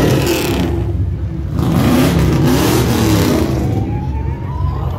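Car engine with a deep idle, revved up so that the revs swell and fall back a couple of times about two to three seconds in.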